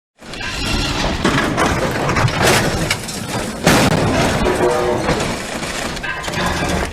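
Bus crash-test collision: a loud noisy impact with crunching and breaking, and two sharp hits about two and a half and three and a half seconds in.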